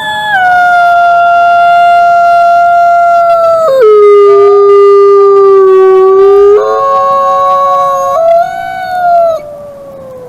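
Wolves howling together: long, overlapping howls at different pitches. The loudest holds a steady note, then drops to a lower one about four seconds in, before the chorus thins out near the end.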